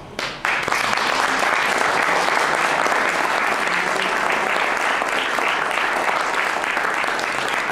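Audience applauding: the clapping starts abruptly about half a second in and holds steady.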